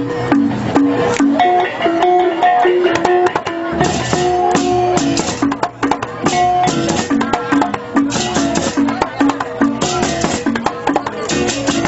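Balinese balaganjur gamelan playing in procession: drums, clashing cymbals and short ringing bronze gong-chime notes in a fast, interlocking repeated pattern.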